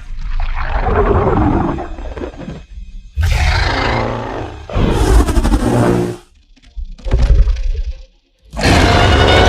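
King Ghidorah monster roars and screeches, a designed film sound effect: about five separate calls with short gaps between them, the last starting near the end and still going.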